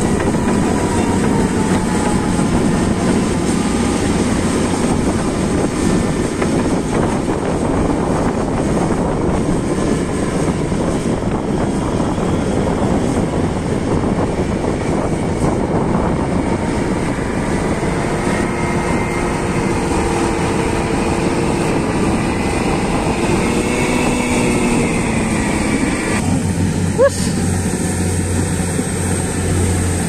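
Komatsu D155A bulldozer's diesel engine running under load as the machine pushes and spreads dirt, with a dense, steady mechanical din. In the second half the engine pitch rises and falls a few times. Near the end there is a single sharp click, and the sound changes to a steadier low hum.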